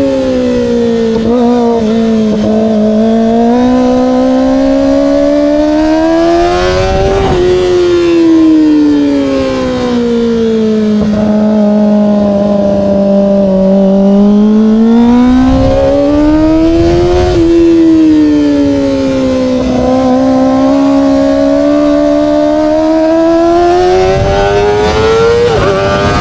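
Kawasaki ZX-25R SE's 250 cc inline-four running through an Austin Racing aftermarket exhaust, its high-revving note climbing and falling over and over as the rider opens and closes the throttle, with brief sharp breaks at the top of three climbs. A steady rush of wind lies underneath.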